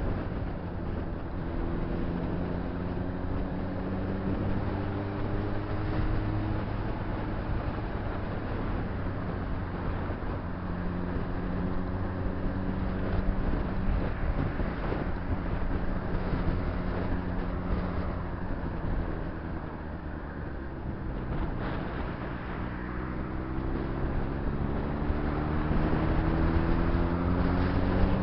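Honda CBR600RR's inline-four engine running under way. Its pitch rises as it accelerates in the first few seconds, holds steady through the middle, and climbs again over the last several seconds, over a steady rush of wind and road noise.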